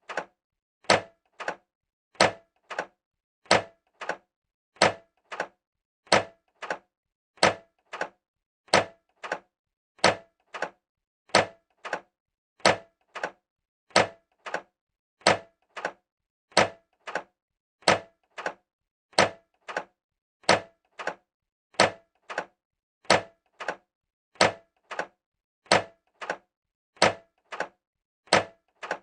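Microwave oven door being opened again and again: each time a sharp clack, then a quieter one just after, with a brief ring, repeating about every 1.3 seconds.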